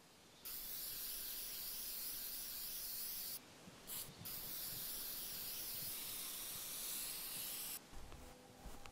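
Aerosol spray-paint can hissing as paint is sprayed, in long bursts: one of about three seconds, a short puff around four seconds in, then another of about three and a half seconds that stops near the end.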